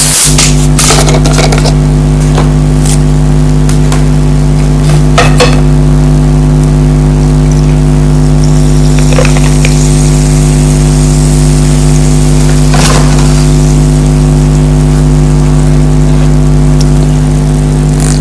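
Spoon or fork clinking and scraping a few times against a plate of food, over a loud steady hum.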